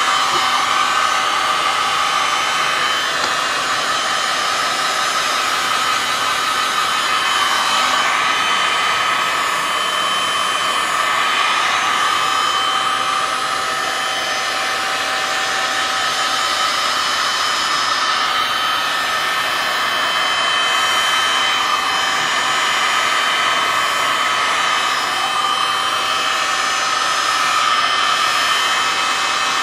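Handheld electric heat gun running steadily: a rushing blow of air with a steady fan whine.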